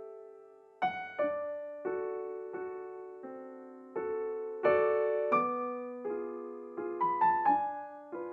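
Slow, gentle solo piano music: single notes and chords struck one after another, each left to ring and fade.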